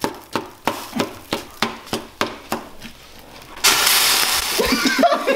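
Spatula knocking against the side of a saucepan about three times a second as boiling ramen noodles are stirred. About three and a half seconds in, a loud steady hiss starts suddenly: the foaming pot boiling over and sizzling on the hot stovetop.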